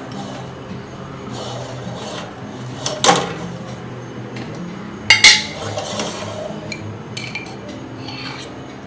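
A steel spoon clinking against an empty stainless steel kadai: two sharp knocks about three and five seconds in, the second the loudest, then a few light taps, over a steady low hum.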